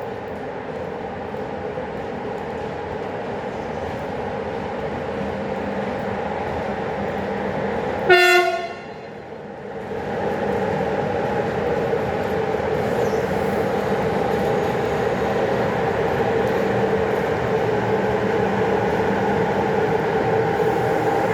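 HŽ series 1141 electric locomotive hauling freight wagons, a steady humming run that grows slowly louder. About eight seconds in the locomotive gives one short horn blast.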